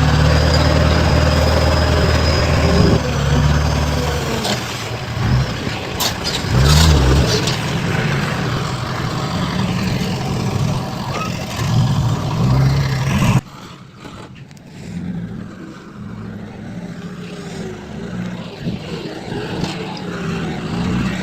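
Heavy construction machinery engines running, loud and steady at first, then changing pitch with a few knocks. About two-thirds of the way through, the sound cuts off abruptly to a quieter engine background.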